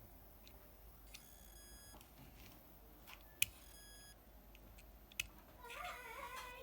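Failing hard disk drive beeping faintly, one buzzy beep about a second in lasting just under a second, the sign that its platter is failing to spin. Two sharp clicks follow later.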